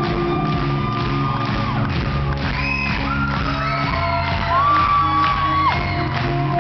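Live rock band playing in a large hall, with high held vocal notes that slide up and hold for a second or two, and shouts over the music.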